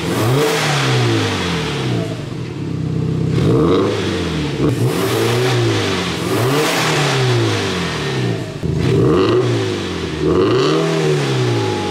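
Subaru WRX's turbocharged flat-four engine revved in a string of throttle blips through a Kondo Engineering full-titanium exhaust, the pitch rising and falling several times. The first revs are with the exhaust valve (ECV) closed, the rest with it open, which gives a markedly different exhaust note.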